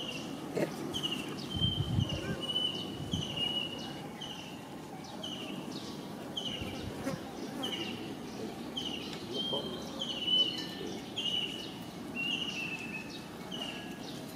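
A bird calling a short, high, slightly falling note over and over at an even pace, about three calls every two seconds.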